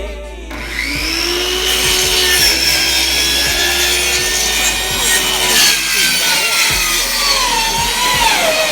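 An electric saw cutting wood: the motor's whine rises as it spins up and then sinks slowly in pitch under the load of the cut, over a steady rasp of the blade in the wood.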